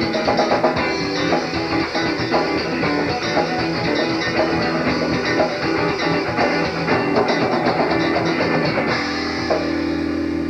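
Southern rock band playing: electric guitars, bass and drum kit. About nine seconds in, the drums mostly drop out and the band holds a steady closing chord.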